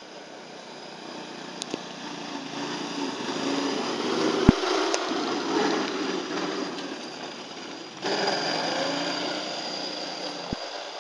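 Small engine of an Arctic Cat ZR 120 youth snowmobile running as it drives past, growing louder towards the middle and then fading; a sharp click about four and a half seconds in.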